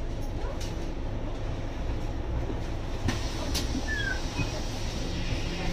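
Scania N280UD compressed-biogas double-decker bus idling at a stop, a steady low rumble and hum, with a few light knocks and clicks.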